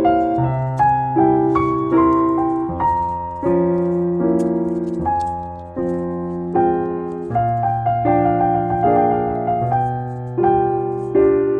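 Background music: a piano playing a steady run of melody notes over sustained chords, each note struck and fading away.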